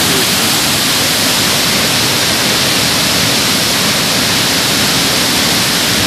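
Chitrakoot Falls pouring over its rock cliff: a steady, loud rush of falling water with no break.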